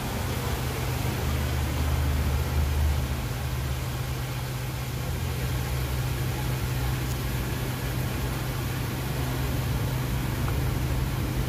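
Steady low mechanical hum with a deeper rumble underneath, the rumble swelling briefly a couple of seconds in.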